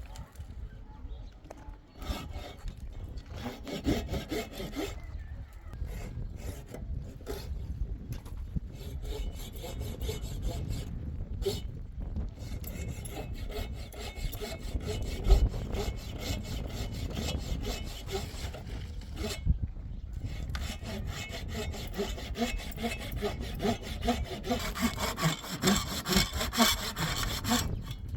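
A saw cutting through wood in repeated back-and-forth strokes, growing louder in the last few seconds.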